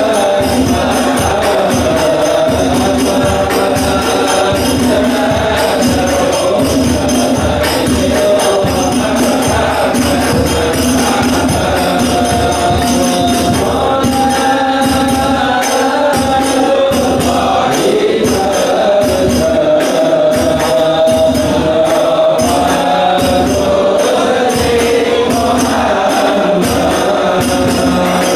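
A group of men singing Arabic sholawat together in unison, accompanied by hadroh frame drums (rebana) beating a steady rhythm.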